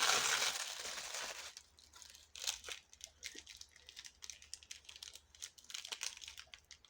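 Tissue paper rustling and crinkling as it is unfolded by hand, dense and fairly loud for about the first second and a half, then lighter scattered crinkles.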